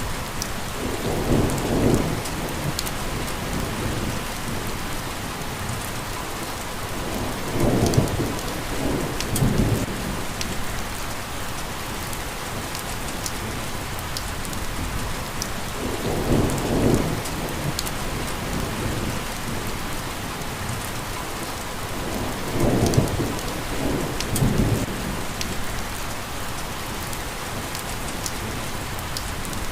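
Steady rain falling in a dense, even hiss. A low rumble swells and fades four times, about every six to seven seconds.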